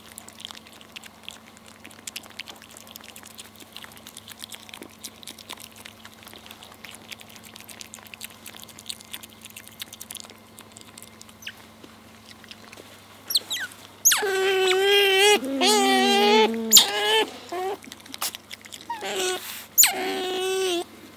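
Asian small-clawed otters chewing beetle larvae, with faint scattered crunching clicks and hay rustling. About 14 s in, the pups break into loud, wavering, squealing begging calls, repeated in quick series.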